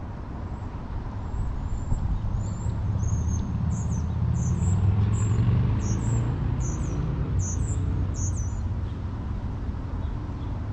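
A small wild songbird calling a string of about a dozen quick, high chirps, from a second or two in until near the nine-second mark, over a steady low rumble that swells midway.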